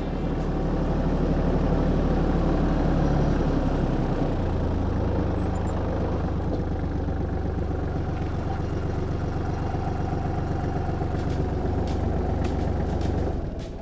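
Kubota farm tractor's diesel engine running steadily as the tractor is driven across a tilled field. The engine note rises a little about four seconds in, and the sound drops away near the end.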